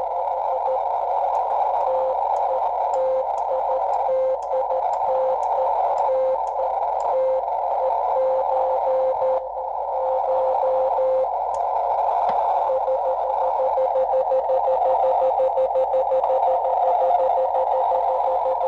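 Morse code (CW) tone from a hand-keyed Super RockMite QRP transceiver, heard over steady receiver hiss. For about the first eleven seconds the tone breaks into irregular dots and dashes, with a brief dip about nine and a half seconds in. After that it becomes a steady string of rapid, evenly spaced dots.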